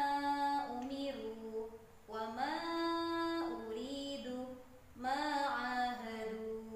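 A female voice chanting Arabic Qur'an-reading practice words in a sung, melodic style. The short phrases are each held on steady notes, with brief pauses between words.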